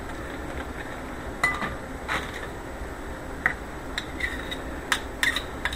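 Metal fork clinking and scraping against a ceramic salad bowl while a soft spread is worked into the salad: a scattering of light, irregular clinks, a few with a short ring.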